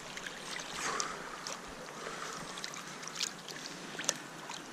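River water sloshing around a landing net as a brown trout is brought in, with several short sharp splashes.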